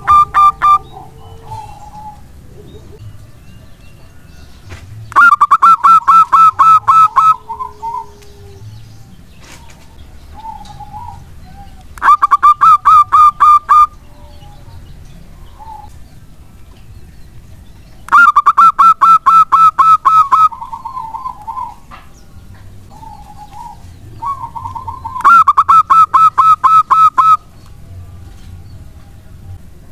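Zebra dove (perkutut) song: four loud phrases of rapid staccato coos, each about two seconds long and coming every six or seven seconds, with softer short notes between them.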